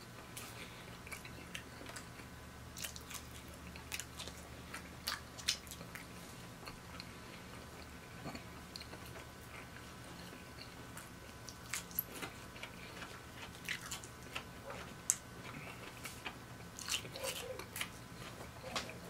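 Close-miked chewing of battered fried food: irregular crunches and wet mouth clicks, over a faint steady hum.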